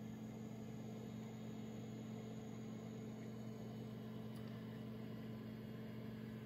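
Faint steady electrical hum, two low tones one an octave above the other, over a soft even hiss.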